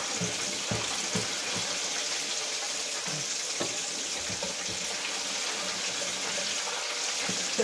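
Hot oil frying in an electric deep fryer: a steady sizzling hiss with small scattered crackles.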